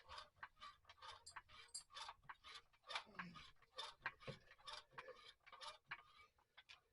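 Hand ratchet clicking while bolts are tightened, faint, irregular ticks a few times a second.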